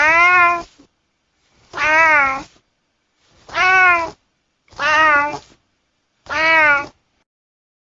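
Domestic cat meowing five times, each meow under a second long and slightly arching in pitch, about one and a half seconds apart.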